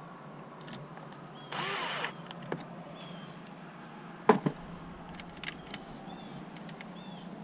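A cordless drill/driver whirs briefly, spinning up and down for about half a second, driving a trim screw, followed by a sharp knock a little after four seconds in and several small clicks of parts being handled.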